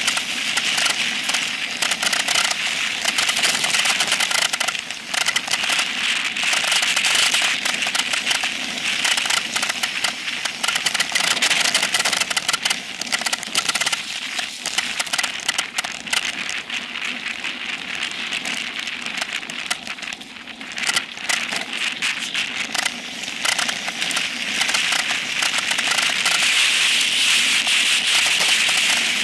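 Continuous crackling, rattling noise of a Specialized Epic Pro mountain bike descending a dirt singletrack at speed: tyres on loose dirt and the chatter of the bike and its seat-post-mounted camera over the rough trail, dropping briefly about two-thirds of the way through.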